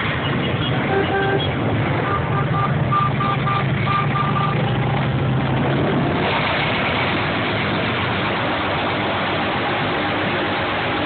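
A column of cruiser motorcycles riding slowly past, their engines running with a low steady drone. From about two seconds in, a run of short high beeps sounds for a couple of seconds.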